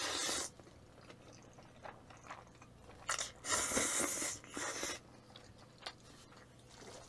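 A person slurping thick, flat kalguksu noodles coated in black bean sauce, then chewing. There is a short slurp at the start and a longer one from about three to five seconds in, with small wet chewing clicks between.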